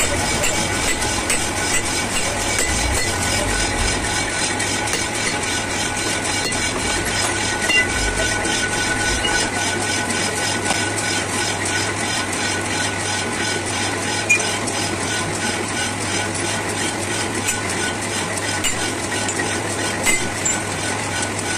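Steady mechanical running noise, like an engine or machine in the workshop, with a fine rapid ticking and a low hum throughout. A few sharp metallic knocks stand out, from a hammer striking a steel truck leaf-spring bracket.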